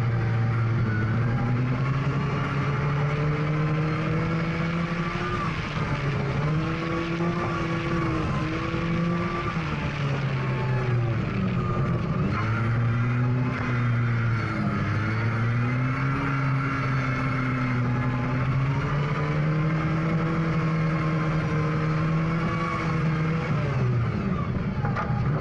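Rally car engine heard onboard, revving hard and holding, then dropping back several times as the driver lifts, brakes or shifts through the bends of a dirt track, over a steady rush of tyres and gravel.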